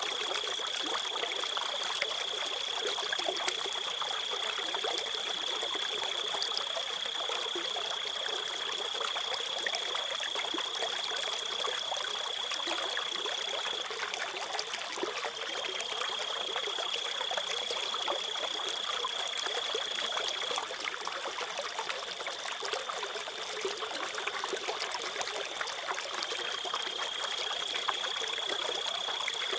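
Crickets trilling in one steady high note over continuously trickling stream water. The trill falters and shifts slightly a few times.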